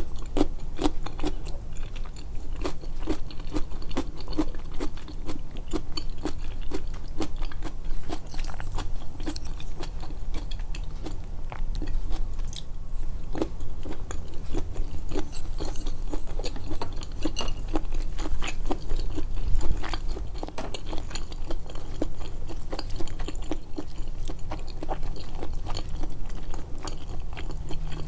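A person chewing food close to the microphone, with a steady run of wet, irregular mouth clicks and smacks and some bites. The eating sounds are amplified.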